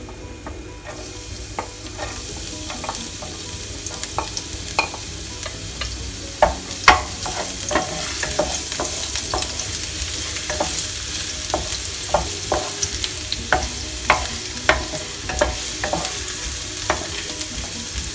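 Minced garlic and ginger sizzling in hot oil in a nonstick pan. The sizzle grows louder about a second in as the garlic goes in, while a wooden spatula taps and scrapes the pan many times as it stirs.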